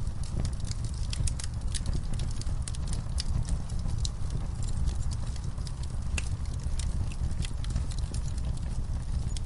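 Wood fire burning in a fireplace: logs crackling with many irregular sharp pops over a steady low rumble of the flames.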